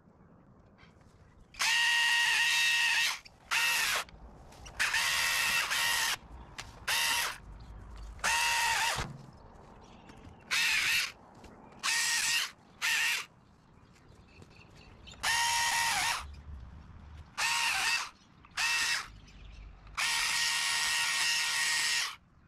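Multi-tool pole saw cutting tree branches in about a dozen short bursts of motor whine. Each burst starts and stops sharply, and the longest, near the start and near the end, last about two seconds.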